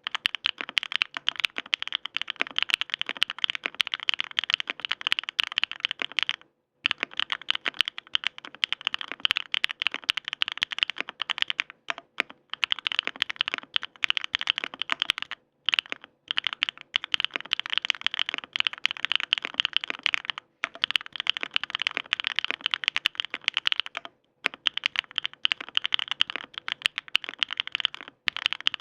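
Sangeo 65 mechanical keyboard with Bsun Raw switches being typed on fast, a dense stream of key clacks in runs of several seconds broken by short pauses.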